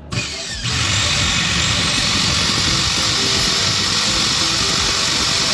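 Vacuum cleaner universal motor, freshly repaired with a new armature coil and adjusted carbon brushes, switched on under a second in and running at full speed with a loud, steady rushing whine.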